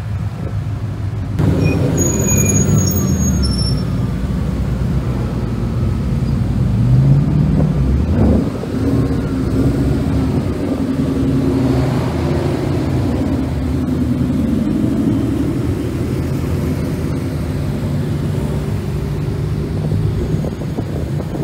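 A line of Ford Mustangs and other Ford cars driving slowly past one after another, engines and exhausts running at low speed, with one engine revving up about eight seconds in.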